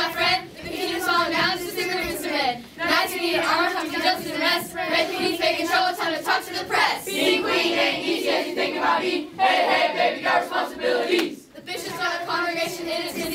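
A group of children singing a song together, with held notes and short breaks about two and a half seconds in and near the end.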